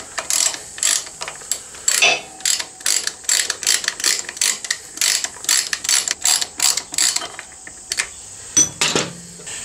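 Ratchet wrench clicking in short runs, about two or three clicks a second, as a bolt on a motorcycle's rear brake caliper is run in. The clicking pauses near the end, then comes again briefly.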